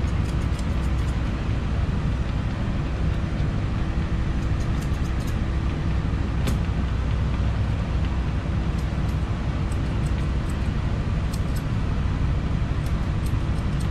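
Steady machinery drone inside a mobile dog-grooming bus, a low rumble with a constant hum, with faint snips of grooming scissors here and there.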